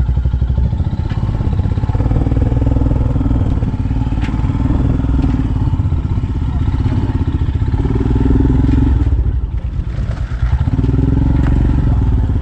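Royal Enfield Himalayan's single-cylinder engine pulling at low speed through deep mud, the throttle opening and easing several times, with a brief let-off about three-quarters of the way through.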